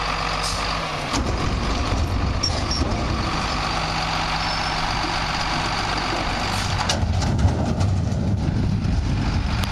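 Garbage truck engine running, growing louder and rougher about a second in as the truck moves. There is a short, sharp sound near the seven-second mark.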